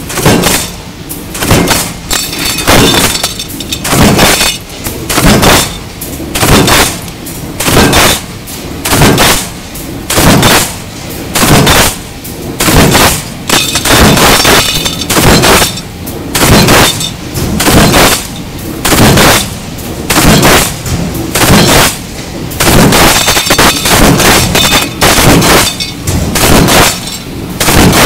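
Mechanical punch press stamping sheet-metal parts through a progressive die: loud, sharp strokes in a steady rhythm of about one a second, each with a short metallic ring.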